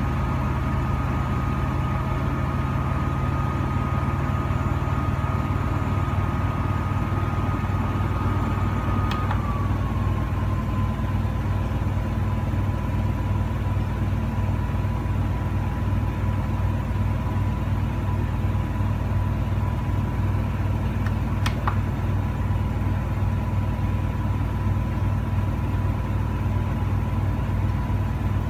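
Air purifier fan running with a steady deep hum and a thin whine. About a third of the way in a click comes as the fan setting is changed, and the whine slides down a step and settles lower as the fan slows; a second click comes later.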